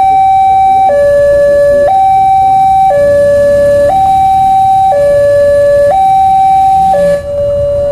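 Railway level-crossing warning alarm sounding loudly from its loudspeaker: an electronic two-tone signal alternating steadily between a higher and a lower tone, each held about a second, while the barriers are down.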